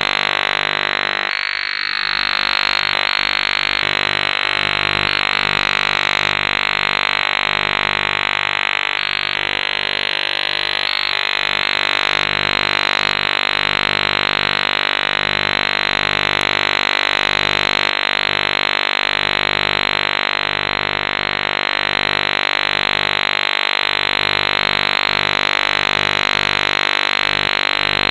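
Harsh, fuzzy electronic drone sampled from a radio signal: many steady tones stacked together, held loud and even, with brief wavering around two and ten seconds in.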